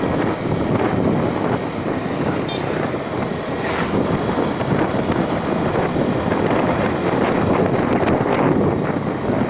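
Wind buffeting the microphone over the steady running of a vehicle on the move.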